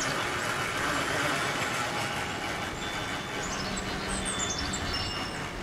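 Small electric winch motor driving a go-kart's chain in reverse: a steady mechanical whirring and grinding that eases a little partway through, the underpowered motor only just managing to back the kart. Birds chirp faintly in the second half.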